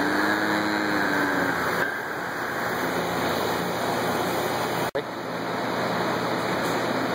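Steady rushing noise of an electric fan blowing in the llama barn, with a faint low pitched sound in the first second and a half. The sound drops out for an instant about five seconds in.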